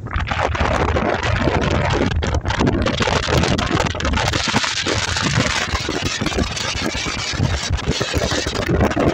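Wind buffeting the microphone in the open bed of a moving pickup truck, over the truck's road and engine noise.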